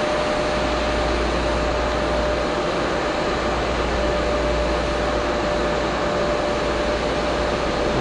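Steady mechanical drone of running machinery: an even rushing noise with one constant humming tone in it, unchanging throughout.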